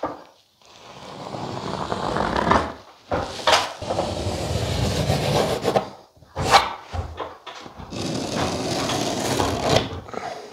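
Pencil traced along the edge of a plasterboard sheet onto the ceiling in three long scraping strokes, with short knocks between them.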